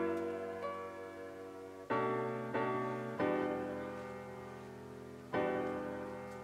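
Background music: soft keyboard chords struck every one to two seconds, each fading away.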